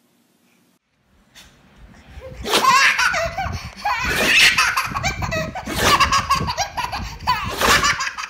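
Baby laughing hard, in repeated bursts of laughter, starting about two seconds in.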